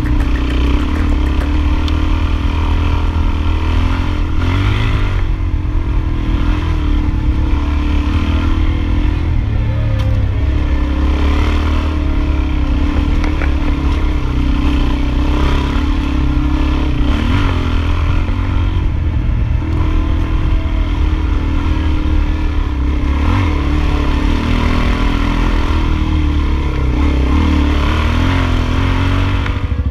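Adventure motorcycle engine running under way, a steady drone with small rises and falls in revs and some rattle.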